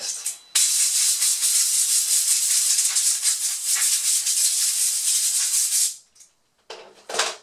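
A blast of compressed air from a compressor blow gun, a loud steady hiss lasting about five seconds before it cuts off. It is blowing accumulated dust off the blades of a laptop cooling fan.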